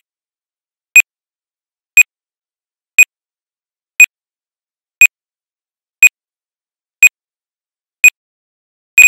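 Electronic countdown beeps of a timer-bomb sound effect: a short, high beep exactly once a second, nine times. A steady unbroken tone of the same pitch starts right at the end as the count hits zero.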